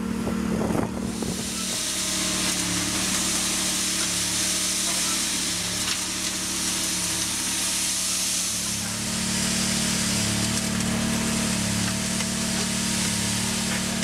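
Slipform concrete kerb machine's engine running steadily with a low hum, a constant hiss over it.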